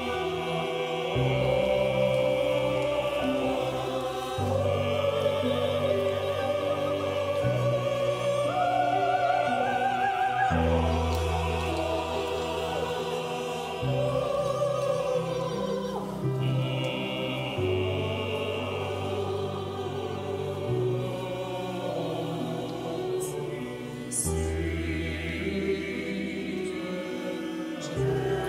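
Mixed choir singing a choral piece with piano accompaniment, the low accompanying notes held and changing every few seconds.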